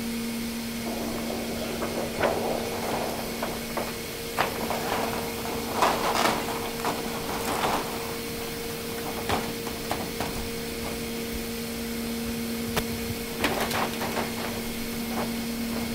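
Scattered knocks, scrapes and rustles of a protective slip sheet being slid in between the two rows of a finned condenser coil, over a steady machine hum.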